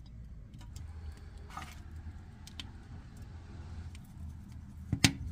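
Handling sounds as a raw whole chicken is set into a stainless steel roasting tray: light clicks and a brief rustle over a low rumble, then a sharp double knock near the end.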